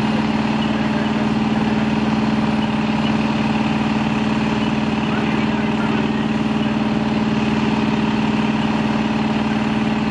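Engine running steadily at a fire scene, a constant low hum with no change in speed, typical of fire apparatus idling or pumping.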